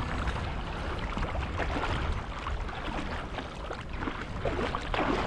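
Wind buffeting the microphone over the wash of surf, with short splashy water sounds scattered through.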